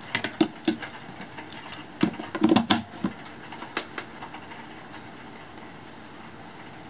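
Plastic clicks and knocks as a black plug-in power adapter is handled and pushed into a socket of a white power strip, with the densest run of knocks about two to three seconds in. A steady faint hiss follows.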